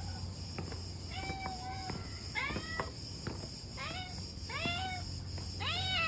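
A cat meowing repeatedly, about five rising-and-falling meows a second or so apart, over a steady high buzz of insects.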